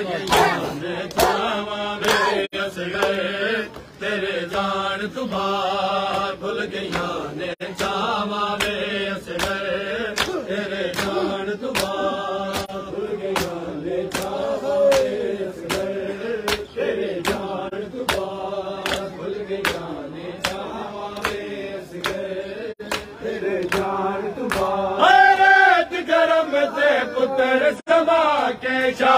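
Men's voices chant a noha, a mourning lament, in unison. A crowd of mourners beats their chests in matam, an even stroke a little under twice a second. The singing grows louder near the end.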